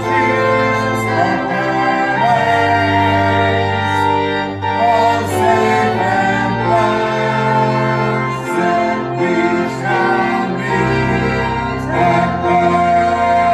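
A hymn: organ playing sustained chords with voices singing along.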